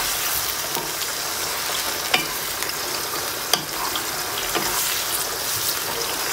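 Marinated boneless chicken pieces sizzling in hot oil in a wok while being stirred with a spatula. A steady frying hiss, with a couple of sharp clicks from the spatula against the pan.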